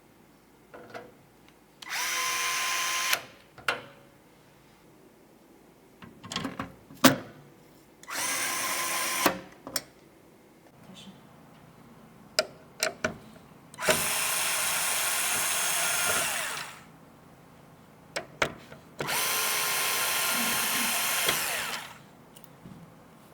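Small electric screwdriver driving screws in four separate runs of one to three seconds each, its motor whirring steadily, with short clicks and taps of handling between the runs.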